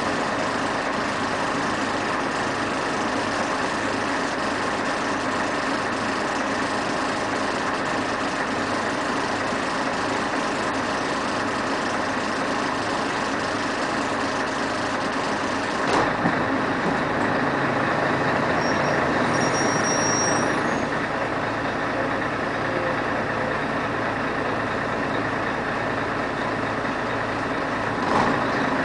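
Scania CN113CLL city bus's 11-litre diesel engine heard from inside the cabin, idling steadily while the bus stands. About halfway through there is a click, and the engine note changes and grows a little louder as the bus slowly moves off.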